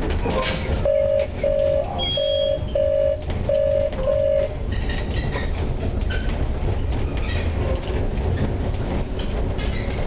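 Tram moving slowly, heard from inside the driver's cab: a low running rumble with wheels clicking over the depot's track joints and points. About a second in, six short, evenly spaced electronic beeps at one pitch sound over roughly four seconds.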